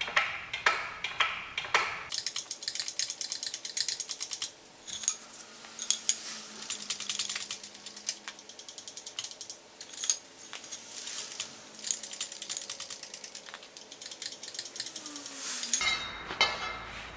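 Rapid metallic clicking and clinking, small metal parts and tools knocking together in quick runs with bright ringing tones. It is preceded by regular knocks about three a second in the first two seconds.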